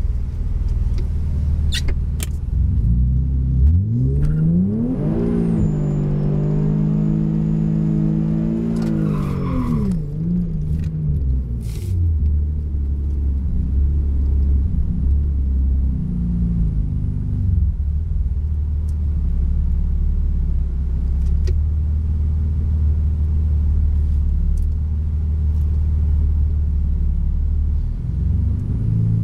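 Turbocharged Infiniti G37's 3.7-litre V6, heard from inside the cabin, revving up about three seconds in and holding high for several seconds. It drops back near ten seconds, then idles with a low, steady rumble and one short rev partway through.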